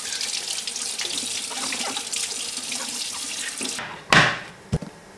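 Kitchen tap running as a carrot is rubbed clean under the stream. The water stops suddenly a little before four seconds in. Then comes a loud clack as a cutting board is set down on the countertop, followed by a lighter knock.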